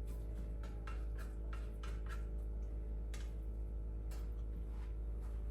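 Irregular light ticks and clicks, a few a second, over a steady low hum.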